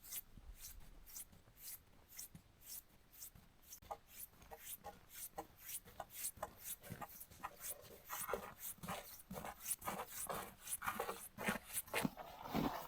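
Footsteps crunching in snow at a walking pace, growing louder toward the end.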